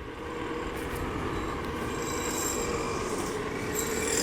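Kingsong S22 electric unicycle on the move: a steady high whine from the hub motor over tyre rumble and wind on the microphone, getting gradually louder.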